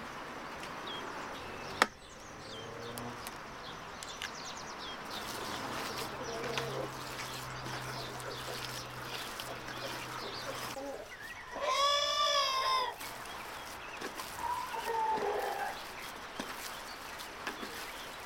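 A rooster crows once, about twelve seconds in: a single pitched call lasting just over a second that rises and falls. A shorter call with a falling pitch follows a few seconds later, and a sharp knock near two seconds in is the loudest sound.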